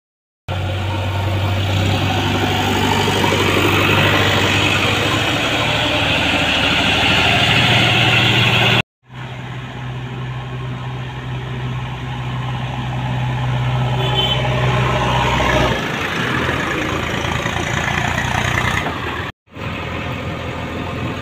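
Diesel engines running steadily, first a Swaraj tractor close up and then a JCB 3DX backhoe loader on the move. The sound breaks off twice very briefly at cuts, and the low engine note drops away about two-thirds of the way through.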